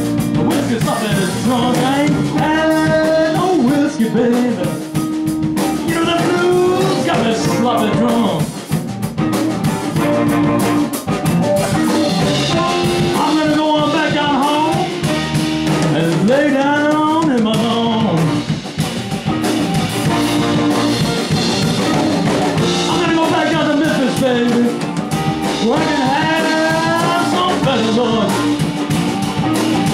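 Blues band playing a song, with a drum kit underneath and a lead line whose notes bend up and down.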